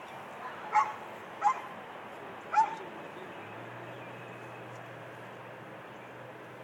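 A dog barking at a decoy during protection training: three short, sharp barks about a second apart in the first three seconds, then only a faint low steady hum.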